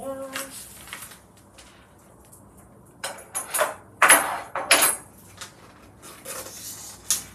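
Plastic cling film crinkling and tearing as it is peeled off a takeaway food container. It comes in several irregular bursts, loudest about four to five seconds in.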